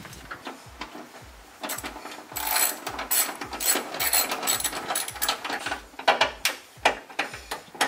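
Ratchet wrench clicking in rapid bursts, backing out the 10 mm bolts that hold the hood to its hinges; the clicking grows louder and denser about two seconds in.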